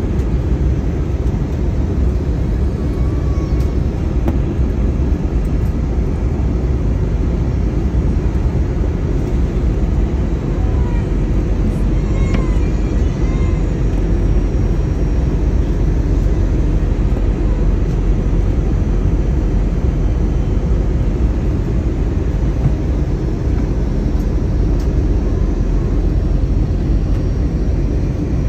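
Steady, low rushing noise inside a jet airliner's cabin in flight, from its turbofan engines and the air streaming past the fuselage.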